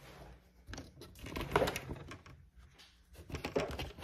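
Handling noise from a camera being picked up and repositioned by hand: bursts of rustling, taps and knocks, one cluster about a second in and another about three seconds in.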